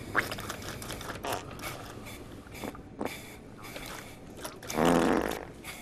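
Automatic food and drink vending machine at work: mechanical clicks and short whirring chirps as liquid pours into a cup, with a loud buzzing hum about five seconds in.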